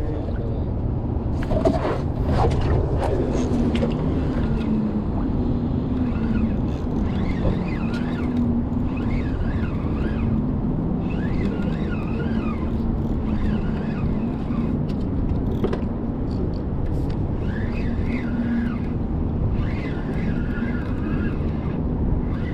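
Small outboard motor on a skiff running steadily at low speed, a continuous low drone with a slightly wavering pitch. Short high wavering tones come and go on top every few seconds.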